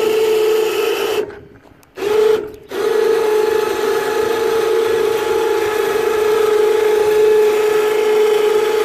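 ATV electric winch motor running with a steady whine as it reels in cable, hoisting a 6x6 railroad tie on a truck-bed crane. It stops briefly about a second in and again about two and a half seconds in, then runs on.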